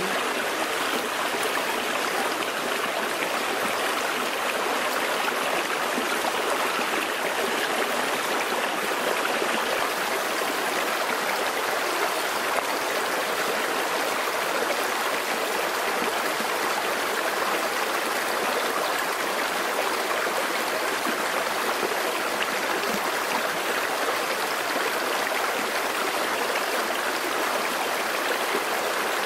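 Water of a rocky stream flowing over stones, a steady even rush with no let-up.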